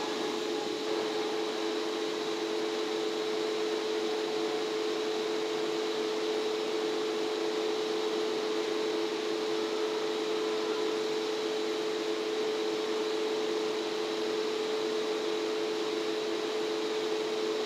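A steady machine hum with two constant low-middle tones over an even hiss, unchanging throughout.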